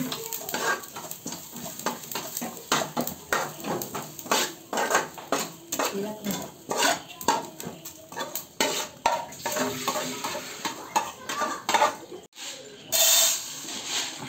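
A utensil stirring and scraping in a metal cooking pan, with many irregular clinks and knocks. A short sizzling hiss comes near the end.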